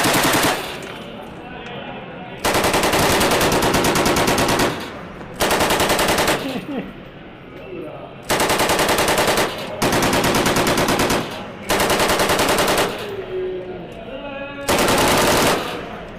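Machine gun firing in bursts of about one to two seconds, about seven bursts with short pauses between, the shots coming fast and evenly within each burst.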